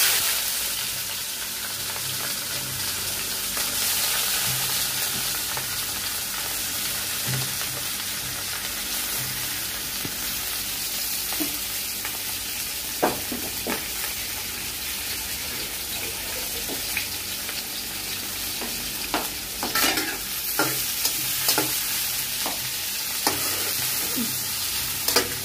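Sliced onions, garlic and ginger frying in hot oil in a deep metal pan, a steady sizzle that starts sharply as they hit the oil. From about halfway on, a metal spatula stirring them clicks and scrapes against the pan, most often near the end.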